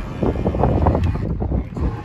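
Wind buffeting the microphone, gusty and uneven.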